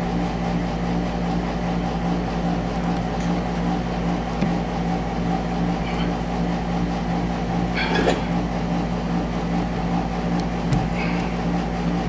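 Steady mechanical hum throughout, with a few faint clicks and a brief scrape about eight seconds in as electrical cable wires are handled and stripped with a wire stripper.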